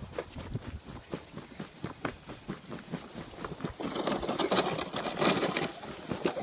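Steps crunching in snow, a few short crunches a second, turning into a denser, louder crunching scrape about four seconds in.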